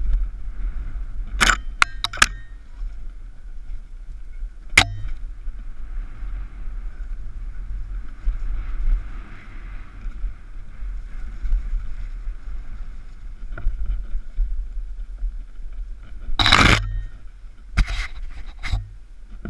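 Mountain bike descending a bumpy dirt trail, heard from a camera on the rider: a steady low rumble of wind and vibration with the bike rattling, broken by sharp knocks as it hits bumps. There are three quick knocks early, one more a few seconds later, and a longer, loudest jolt about three-quarters through, followed by two more.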